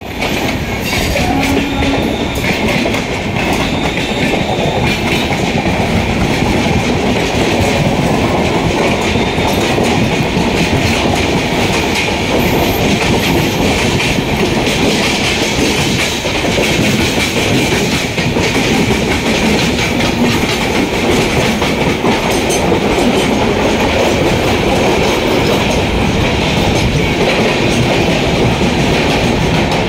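Steady, loud rail noise of trains running on parallel tracks: steel wheels clattering over rail joints over a continuous rumble as the LTT–Coimbatore Express accelerates alongside.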